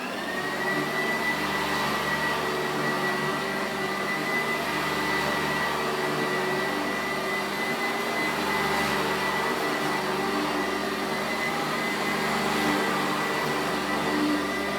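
Sanitaire SC886 wide-track commercial upright vacuum switched on, its motor whine rising as it spins up, then running steadily with a high whine over a loud rushing of air.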